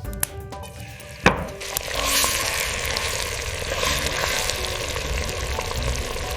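A sharp clack, then food sizzling steadily in a hot pan from about a second and a half in, over soft background music.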